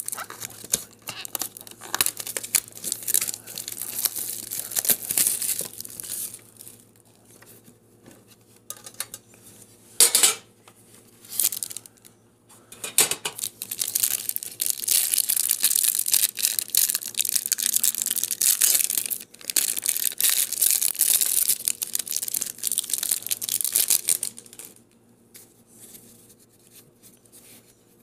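Cellophane wrapping crinkling and tearing as it is pulled off a stack of trading cards by hand, in uneven bursts, with one long run of dense crinkling in the second half that stops a few seconds before the end.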